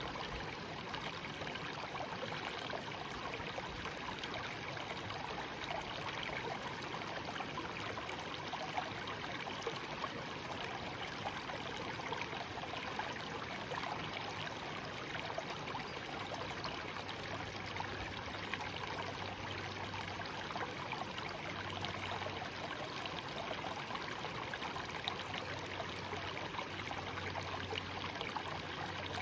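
A shallow stream flowing steadily, its water trickling and babbling without a break.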